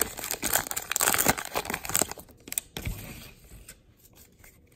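Wrapper of a Topps Gypsy Queen baseball card pack being torn open and crinkled, a dense crackle that dies down after about two seconds into faint handling sounds.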